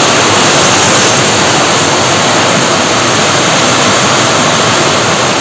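Heavy rain pouring down, a loud steady hiss that does not let up.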